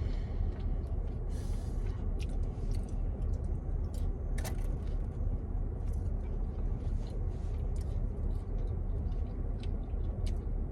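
Steady low rumble inside a car's cabin, with scattered small clicks and crunches from people eating chicken wings.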